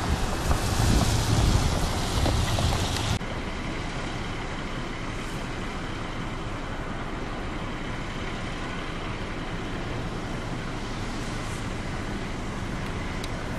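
Road traffic on a wet, slushy street: a louder rush of passing vehicles and tyres on wet pavement for about three seconds, then a sudden drop to a steady, quieter hum of traffic and idling vehicles.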